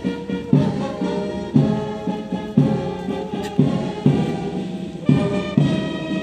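Brass band playing a slow ceremonial salute tune, with a heavy drum beat about once a second under sustained brass chords.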